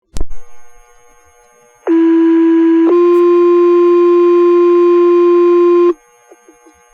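Fire department radio paging alert: a short burst of radio static as the channel opens, then a two-tone sequential page, a steady low tone for about a second that steps to a slightly higher tone held for about three seconds and then cuts off.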